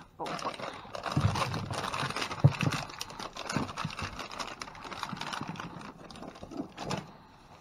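Rummaging through discarded goods and bags in a dumpster: dense rustling and clatter of packaging, with several dull thumps as items are moved, easing off near the end.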